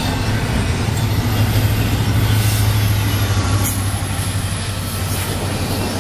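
Union Pacific mid-train distributed-power diesel locomotive passing close by: its engine drone rises to a peak around the middle, then eases off. Beneath it runs the steady roll of double-stack container cars on the rails, with a faint thin wheel squeal in the second half.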